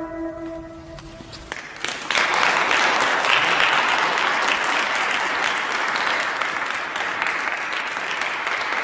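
The last held note of a transverse flute fades into the reverberation of a church, and after a short hush an audience breaks into steady applause about two seconds in.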